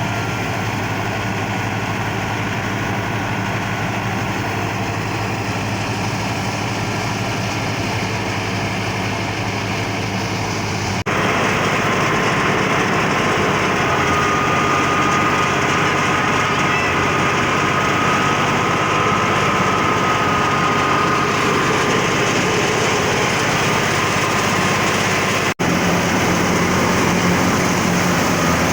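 Tractor-driven wheat thresher running steadily together with the tractor's engine: a dense, continuous mechanical din with a steady hum. It gets suddenly louder about a third of the way in and drops out for an instant near the end.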